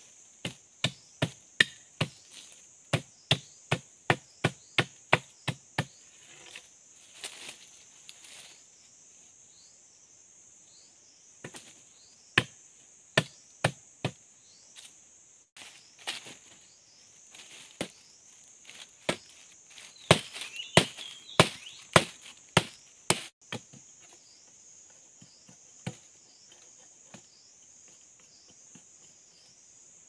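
Machete blade striking wooden sticks on the ground: sharp chopping strokes about two a second for several seconds, then scattered strokes with pauses that stop about three-quarters of the way through. A steady high insect drone runs underneath.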